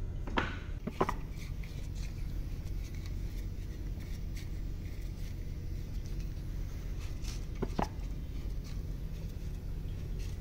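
Toyota 2AR-FE engine's crankshaft and connecting rods being turned and handled by hand on an engine stand: a few sharp metallic clicks, two close together near the start and one about eight seconds in, over a steady low hum.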